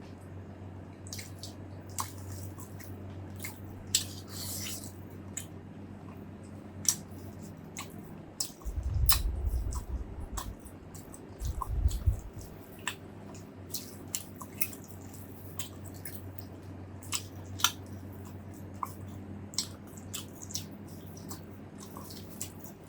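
Someone eating close to the microphone: wet chewing and lip-smacking, heard as many short, sharp clicks. There are two dull low thumps, about nine and twelve seconds in, over a steady low hum.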